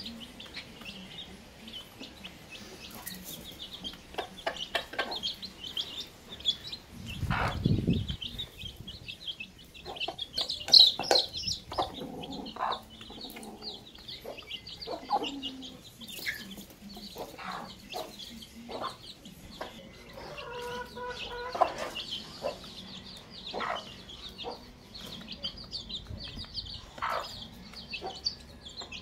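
Domestic hen clucking softly while her chicks peep almost without pause in high, quick cheeps. A brief low rumble comes about seven seconds in, and one loud sharp call near the middle.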